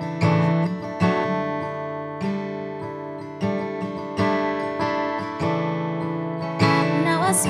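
Steel-string acoustic guitar with a capo, chords struck about once a second and left to ring. A woman's voice begins singing near the end.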